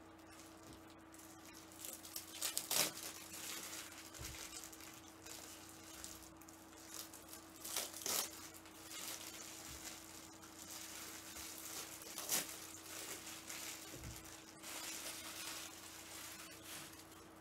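Packs of plastic card toploaders being handled and unwrapped: faint rustling and crinkling of plastic, with a few sharper crackles.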